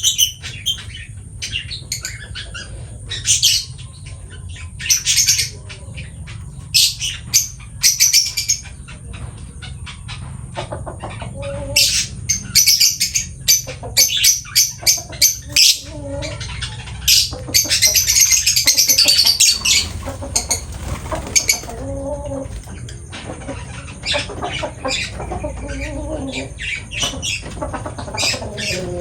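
Lovebird chirping in short, sharp high-pitched calls, with dense runs of rapid chirps about twelve seconds in and again around eighteen to twenty seconds.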